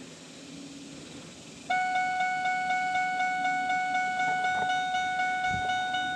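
Ford F-150's dashboard warning chime, a steady electronic tone with a fast, even pulse. It starts about two seconds in, as the key is turned to on. A soft low thump comes near the end.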